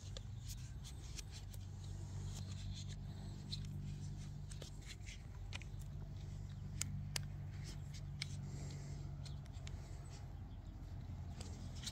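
Scattered small clicks and rustles of plastic drip irrigation line being handled and fitted, over a steady low hum that fades out near the end.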